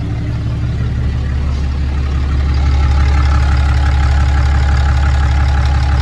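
Dodge Ram 2500's 6.7-litre Cummins turbo-diesel idling steadily, a little louder from about two and a half seconds in, when a steady higher tone joins the low drone.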